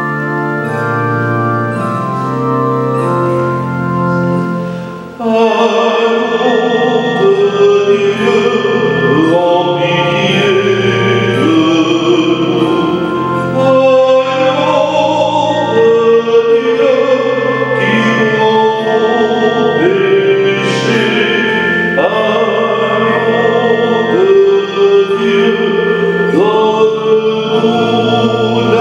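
Organ playing held chords, then singing with vibrato joins over the organ about five seconds in, phrase after phrase: liturgical music at Mass.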